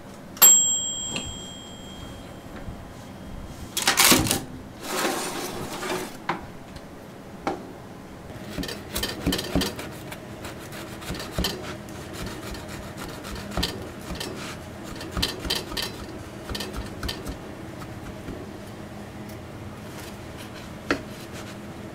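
A toaster oven's timer bell dings once about half a second in, ringing out over a couple of seconds, and there is a brief clatter about four seconds in. After that a bread knife saws through a hot, hard-crusted rice-bran country loaf on a wooden board, and the crust gives off scattered crackles and crunches.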